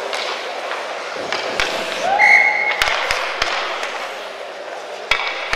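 Youth ice hockey play at the net: a steady wash of skates scraping the ice, with several sharp clacks of sticks and puck striking, a cluster of them around the middle. A brief shout about two seconds in.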